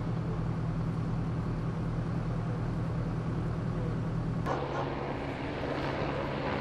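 A steady low engine hum holds for the first few seconds, then cuts suddenly to a busier outdoor mix of traffic-like noise and distant voices.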